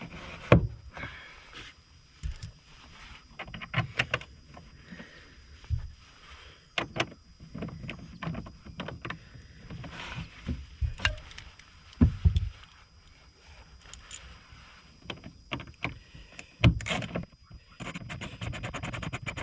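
Plastic trim panel and its push clips being handled and pressed back into place: irregular clicks, taps and knocks, with a quick run of clicks near the end.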